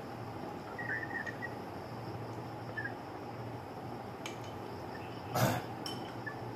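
Light clinks and clicks of chopsticks and tableware over a steady low hum, with one louder short clatter about five seconds in.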